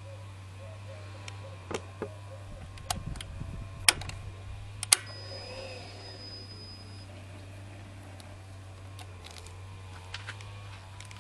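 Sharp clicks and knocks from hands working the controls of a Buell 1125R sportbike with the engine off, the two loudest about four and five seconds in, followed by a thin steady high tone lasting about two seconds.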